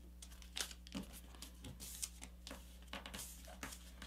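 Sheet of paper being folded and creased by hand into a paper airplane wing: faint rustling with several short, sharp crinkles as the fold is pressed flat, over a steady low hum.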